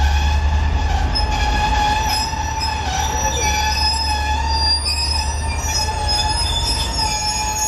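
Passenger train cars rolling slowly over a steel girder bridge, their steel wheels giving a steady, high squeal that wavers slightly in pitch. Underneath is a low rumble that eases after about a second.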